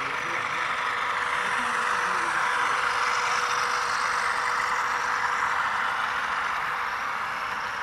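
HO-scale model ScaleTrains ES44AC diesel locomotives running, a steady diesel-like hum and hiss with little bass that grows louder over the first few seconds and then slowly fades.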